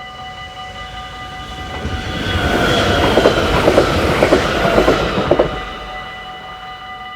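A train passes through a Dutch level crossing, rising and fading over about four seconds, with a quick run of clicks from the wheels over rail joints at its loudest. The crossing's warning bells ring steadily under it.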